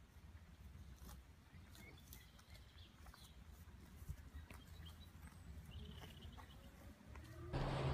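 Cow grazing dry grass: faint, scattered crisp tearing and crunching as it bites and pulls the stalks, over a low rumble. Near the end a much louder steady noise with a low hum cuts in abruptly.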